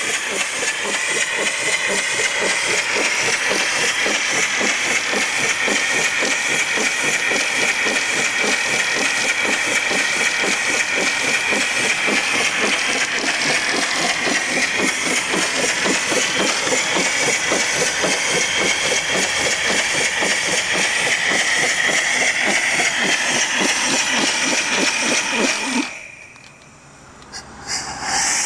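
Steam donkey hoist engine running under steam, with a fast, even chuffing and a constant steam hiss. About 26 seconds in the sound drops away abruptly for a second or two, then comes back.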